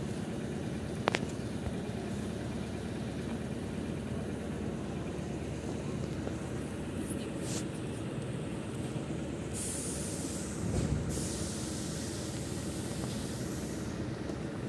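ED4M electric multiple unit rolling to a stop at the platform with a steady low rumble and a sharp click about a second in. From about ten seconds in a high hiss of released air runs for several seconds, with a brief break in the middle.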